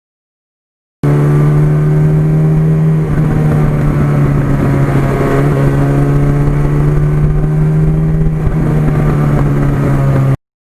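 Suzuki GS1100E motorcycle's inline-four engine running under way at a steady pitch, with only slight shifts in the note. The sound starts abruptly about a second in and cuts off suddenly near the end.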